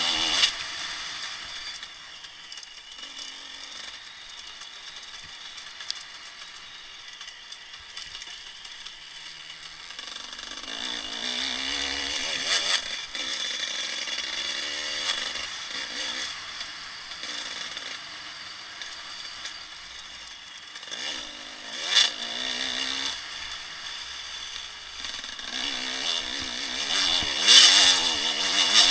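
Enduro dirt bike engine revving up and down as it is ridden along a dirt track, heard from a helmet-mounted camera. It runs quieter for the first several seconds, then revs harder, with sharp bursts a little past the middle and the loudest revving near the end.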